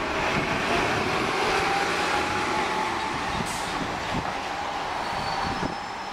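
OC Transpo city bus passing close by. Its engine and tyre noise swell up and hold steady, with a faint steady whine over it.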